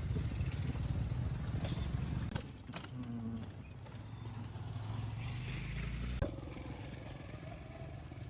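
Road traffic: motor vehicle engines running with a low rumble that eases about two and a half seconds in and drops again after a sharp click about six seconds in.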